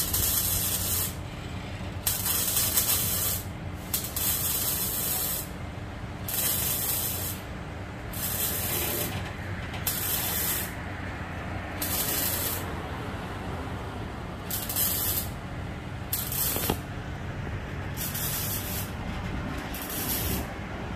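Arc welder laying short welds on an exhaust pipe under the car: about a dozen crackling, hissing bursts, each up to about a second long, with short pauses between them.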